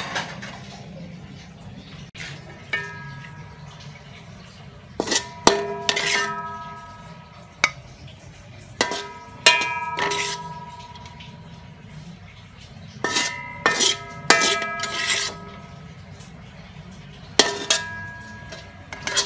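Metal utensil scraping and knocking against a metal wok as food is scooped out, in groups of several knocks every few seconds; the wok rings briefly after each strike.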